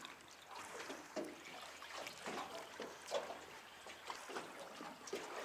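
Small waves lapping and trickling against the side of a drifting boat, with scattered faint ticks and knocks at irregular moments.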